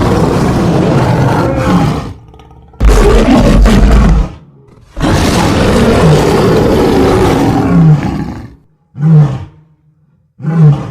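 Lion roar sound effects: five separate roars one after another. The second has a heavy deep rumble, the third is the longest at about three seconds, and the last two are short.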